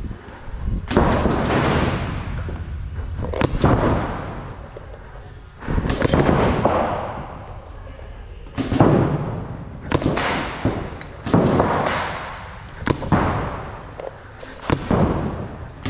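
A series of about nine loud blasts, a second or two apart, each with a sharp start and a long noisy fade.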